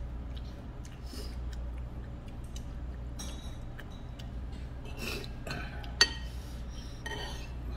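Metal spoon clinking and scraping against a bowl of noodles, a few light clicks and one sharp clink about six seconds in, over a steady low hum.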